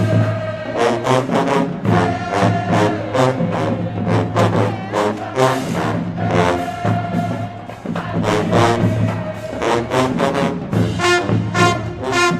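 Live HBCU pep band playing at full volume: brass section of trombones, trumpets and sousaphones over a sustained low bass line, with punchy drum and cymbal hits keeping a steady beat.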